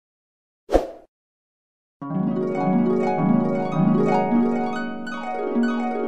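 A short, sharp hit just under a second in. From about two seconds in, a harp plays quick rippling arpeggios, the dreamy 'dream harp' sound effect, with the notes running up and down over one another.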